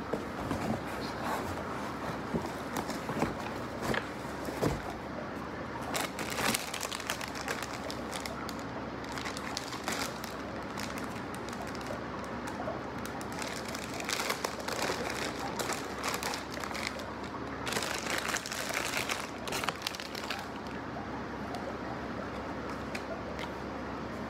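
Cardboard box flaps and a plastic-wrapped package being handled by hand, with irregular crinkling and rustling of the plastic wrap. The crinkling comes in louder spells about six seconds in and again between about fourteen and twenty seconds.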